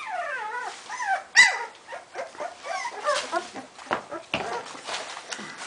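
Pit bull puppies play-fighting: a string of high whines and yelps that slide down in pitch, the loudest a sharp yelp about a second and a half in, with a few knocks a little past the middle.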